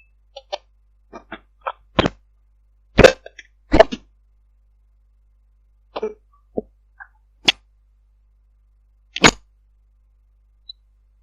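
About a dozen short clicks, knocks and pops at irregular intervals over a Viber call line, with dead silence between. The loudest come about 2, 3 and 4 seconds in and again near 9 seconds; the source is unexplained.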